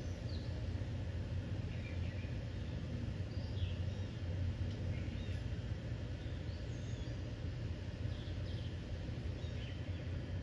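Small birds chirping in short scattered calls over a steady low background rumble of outdoor noise.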